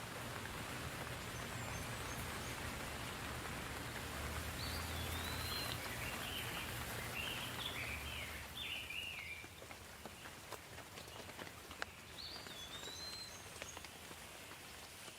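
Steady rain with birds singing over it: a couple of whistled, sliding notes and a run of quick chirps in the middle, and another whistled phrase near the end. Separate drops tick more clearly once the rain eases slightly after the middle.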